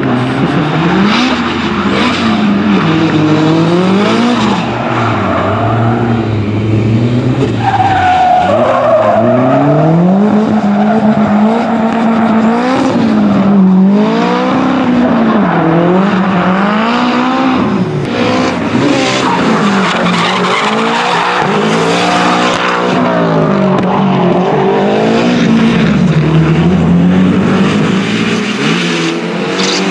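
Drift car engine revving hard, its pitch rising and falling again and again as the throttle is worked through a slide, with tyre squeal and skidding under it; a longer, steady squeal comes about eight seconds in.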